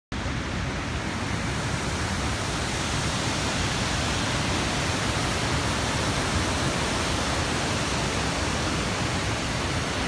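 Large waterfall rushing: a steady, even noise of falling water with no breaks.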